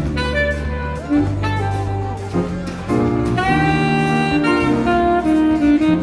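Live jazz band playing: a saxophone carries the melody in held notes over a bass line.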